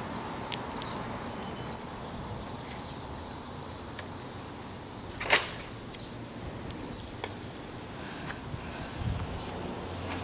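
Insect chirping in an even, high-pitched rhythm, a little over three chirps a second, over a low outdoor hum. One sharp click about five seconds in.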